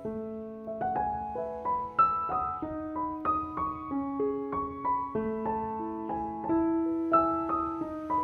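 Background music: piano notes and chords struck one after another, each ringing and dying away.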